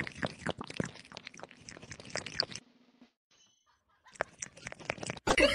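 Black kitten eating from a bowl: quick, irregular clicks of chewing. They stop for about a second and a half in the middle, then start again.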